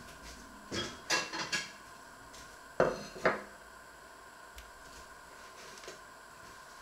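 Crockery and cutlery clattering: a porcelain plate and a metal cake knife handled and set down on a wooden board. A few quick ringing clinks come about a second in, then two sharp clinks about half a second apart near the three-second mark.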